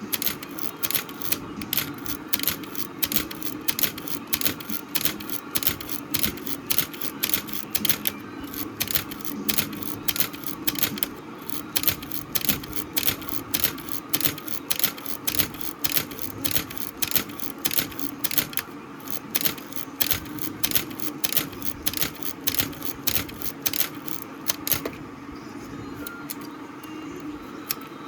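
Nikon FM10 film camera's mechanical shutter being fired and its film advance lever wound over and over, a rapid run of sharp clicks with a few brief pauses, stopping near the end: a test cycling of the camera to check that the repaired frame counter advances.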